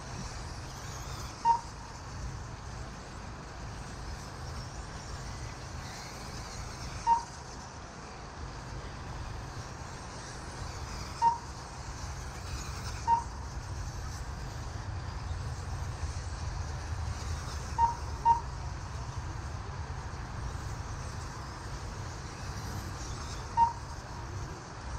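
Race timing system lap-counter beeps: seven short, single high beeps at uneven intervals, two of them close together about two-thirds of the way through, over a steady low background rumble.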